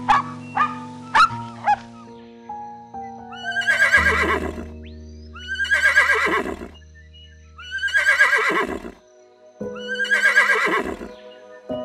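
An animal calling four times over background music, each call about a second long and falling in pitch. A run of short, sharp calls ends about two seconds in.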